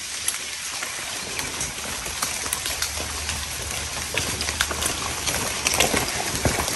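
Rain falling, a steady patter with many small drop ticks that grow thicker near the end.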